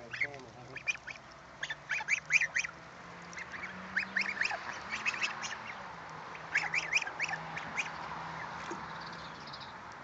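Chinese goslings peeping: many short, high chirps coming in quick clusters, over a faint steady low hum.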